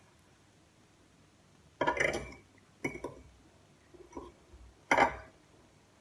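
A metal fork scraping and clinking against a plate while scooping up food, in three loud strokes about a second apart and a softer one between the last two.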